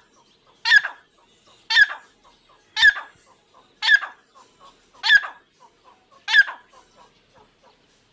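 A pair of Irani teetar (partridges) calling: six loud, sharp calls about a second apart, with soft short notes in between.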